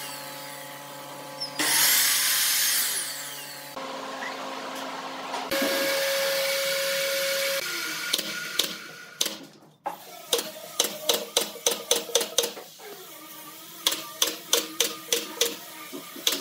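A Ryobi sliding miter saw cuts a wooden strip in one loud pass of about two seconds. From about the middle on, a pneumatic brad nailer fires sharp shots in two quick runs of roughly three a second, driving brads into a wooden table frame.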